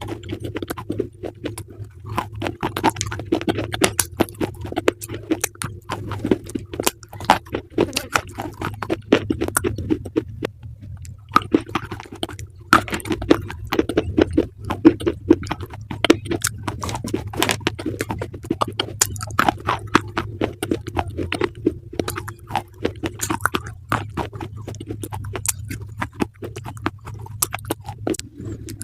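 Crunchy food being chewed close to the microphone: a dense, irregular run of sharp crunches and crackles, over a steady low hum.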